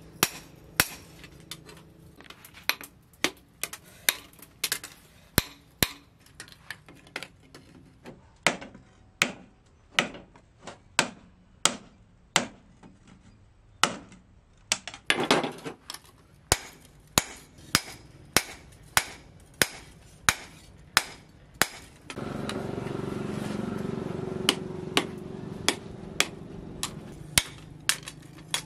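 A steel hammer strikes a steel blade cut from a disc plough, resting on a steel post anvil: sharp ringing blows about two a second, with a short pause about halfway. About two-thirds of the way through, a steady low hum rises under the blows for a few seconds.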